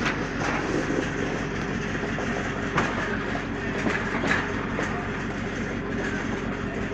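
Machinery aboard a fishing trawler: a steady engine drone with irregular clanks and knocks on top.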